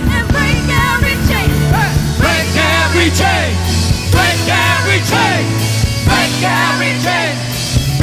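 Live worship band playing a rock-style song: a melody line arching up and down in pitch over held low notes, loud and steady throughout.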